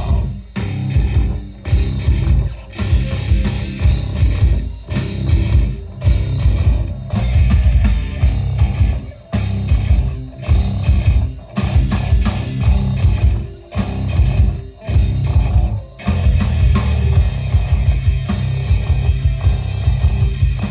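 Rock band playing live: distorted guitars, bass and drum kit in a heavy stop-start riff, with short sharp breaks every second or two.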